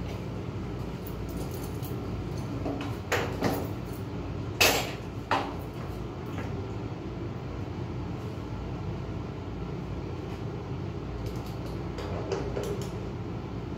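Sharp clicks and knocks of battery cables and terminal connectors being handled on a UPS battery rack. There are four distinct knocks between about three and five and a half seconds in and a few lighter ones near the end, over a steady low hum.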